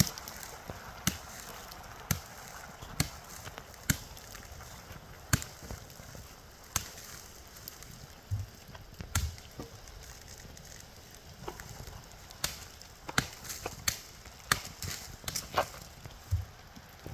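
Irregular sharp knocks and snaps of wood or plant stems, roughly one a second, over a faint steady background.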